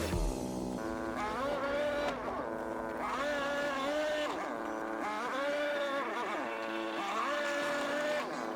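The side-by-side's engine revs again and again, about once every second and a half. Each time its pitch climbs, holds steady briefly and drops back.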